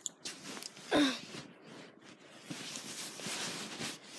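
Handling noise on a phone's microphone: rustling and rubbing against fabric as the phone is moved about, louder in the second half. A short voice sound falling in pitch comes about a second in.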